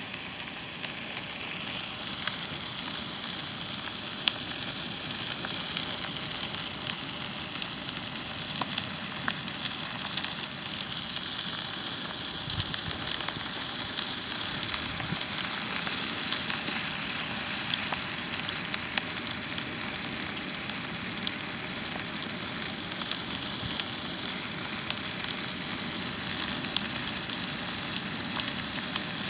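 Fire engulfing a 2016 New Holland T175 tracked tractor, burning with a steady crackling hiss and scattered sharp pops.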